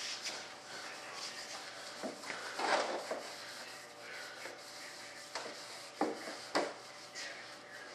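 Hand-held cloth pad rubbed back and forth over a smooth mold surface, waxing it with mold-release wax. The strokes come irregularly, a few of them louder.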